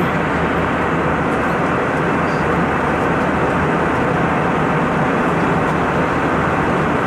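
Steady cabin noise of an Airbus A321 airliner in flight: even engine and airflow noise heard from inside the passenger cabin, unchanging throughout.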